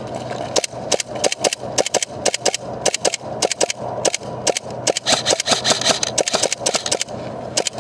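Airsoft guns firing: a rapid, irregular string of sharp snapping shots, several a second.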